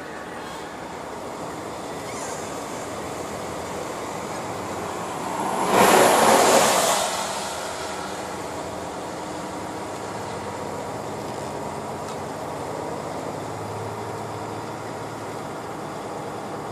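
Steady engine and road noise inside a moving truck cab. About six seconds in, a loud rushing swell lasting under two seconds, as an oncoming vehicle passes close by on the wet road.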